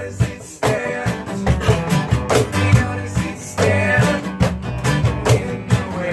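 Live guitar music: a guitar strummed in a steady rhythm under a singing voice.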